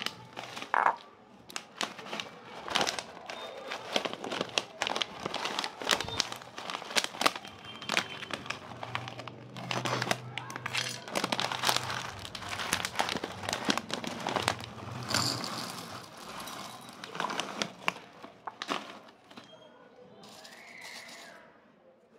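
Foil-lined plastic snack packet crinkling and crackling in quick irregular bursts as it is handled by hand.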